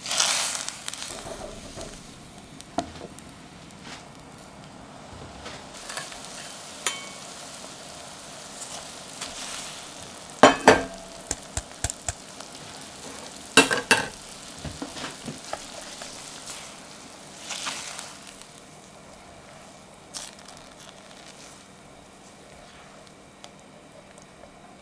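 Sliced shiitake mushrooms sizzling in a small metal saucepan while being stirred with a silicone spatula. A few sharp knocks against the pan ring briefly. The loudest two come near the middle, as washed quinoa is tipped in from a metal sieve.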